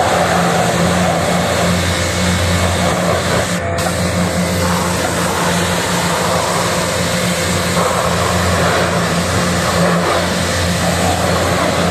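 Pressure washer running, its water jet hissing and spattering steadily against the aluminium fins of an air-conditioner condenser coil, over a steady low motor hum.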